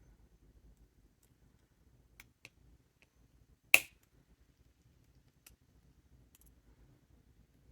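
A few faint small clicks, then one loud, sharp single click, from handling metal jewellery pliers and stainless steel wire.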